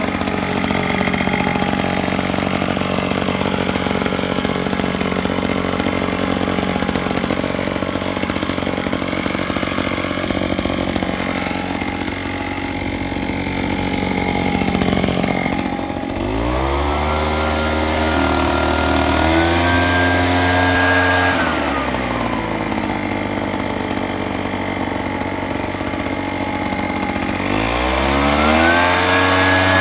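Invatech 915 backpack mosquito mister's 4.7-horsepower engine running steadily at low revs, then throttled up about halfway through, held high for about five seconds and dropped back. It is throttled up again near the end.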